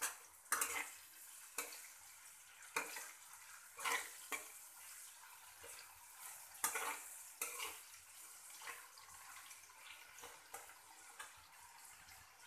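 Metal spatula scraping and knocking against a kadai as chopped vegetables are stir-fried, in irregular strokes over a faint frying sizzle. The strokes come often for the first eight seconds or so, then thin out.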